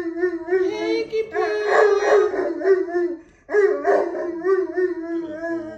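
Great Pyrenees dog howling in two long, sustained howls with a short break about three and a half seconds in, set off by someone coughing outside.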